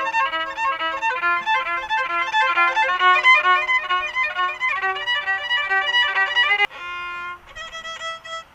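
Background music led by a violin: a quick run of short notes over a held lower note, starting abruptly and changing to a sparser passage near the end.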